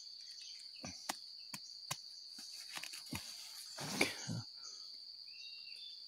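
Steady high insect drone, with a few sharp clicks in the first two seconds and rustling through the undergrowth, loudest about four seconds in, as a sickle and gloved hands work over a rotten jackfruit on the ground.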